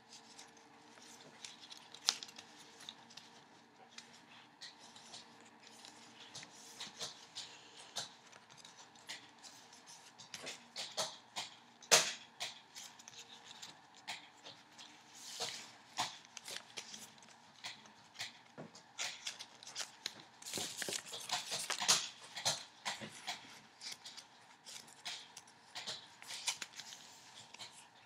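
Paper rustling and crinkling as a white origami ninja star is folded and creased by hand, with irregular soft clicks and a few sharper snaps of the paper, the loudest about twelve seconds in and again around twenty-two seconds, against a wooden tabletop.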